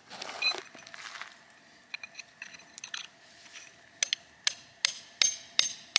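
Hammer driving steel rebar into a hole drilled in stone. A few light taps come first, then from about four seconds in steady blows, about three a second, each a sharp metallic clink.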